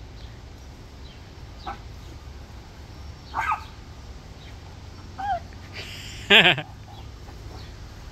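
Small dog yipping and barking in short, excited calls, about four times, the loudest near the end, as it chases spray from a garden hose.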